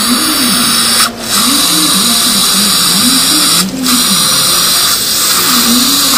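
Contra-angle dental handpiece driving an orthodontic mini-screw into the palate: a steady high whir mixed with the hiss of water irrigation, dipping briefly twice.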